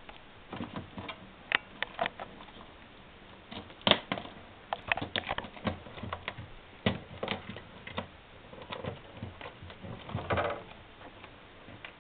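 A ferret scrabbling at a plastic-wrapped whole chicken: irregular clicks, taps and crinkles of the plastic packaging under its paws, with a denser bout of crinkling near the end.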